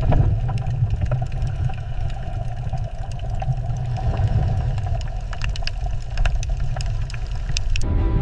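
Low, steady engine rumble with many scattered clicks and ticks over it. Music with sustained tones comes in near the end.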